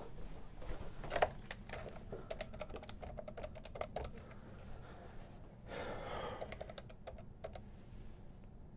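Keys on a desk phone's keypad pressed in an irregular run of clicks, someone punching in his number to clock in.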